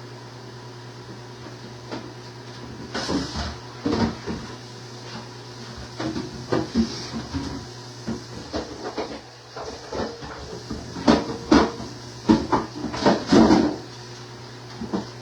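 Irregular knocks and clatters of things being handled in and around a refrigerator, with the loudest run of clatters near the end, over a steady low hum.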